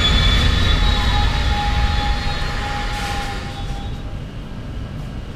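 London Underground Jubilee line train at a station platform: a deep rumble with steady high-pitched whines. The whines end about four seconds in, and the whole sound gradually fades.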